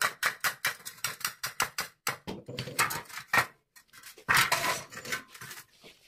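Tin snips cutting through the galvanized sheet-steel wall of 50×50 cable trunking: quick crisp snips, about six a second, with a longer, denser cut about four seconds in, then stopping near the end.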